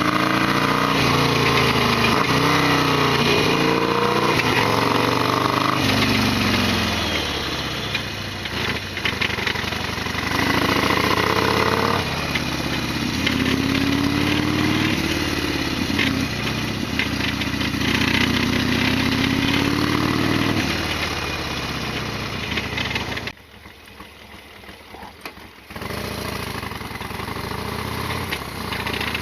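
Harley-Davidson Sportster XL1200R's V-twin engine under way, its pitch rising and falling again and again as it revs up and eases off. About three quarters through, the sound drops away sharply for a couple of seconds, then comes back steadier.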